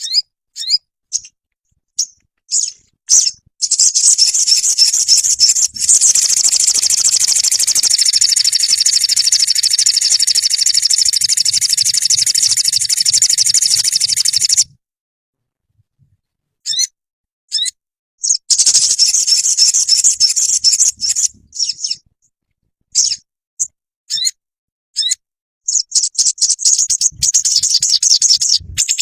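Sogon bird song: scattered short high chirps, then a long, very fast high-pitched trill that runs for about eleven seconds and cuts off suddenly. After a gap of a few seconds a shorter trill follows, with more chirps and trilling near the end.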